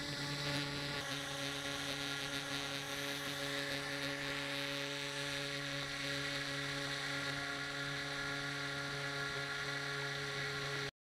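Model rescue air boat's shrouded propeller and motor running at a steady speed, heard from the camera mounted on the boat: an even hum with a whine above it, with water and wind hiss underneath. It cuts off suddenly near the end.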